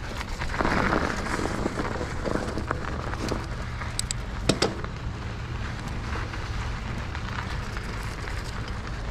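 Mountain bike tyres rolling and crunching over frozen snow, under a steady low rumble. Two or three sharp knocks about four seconds in.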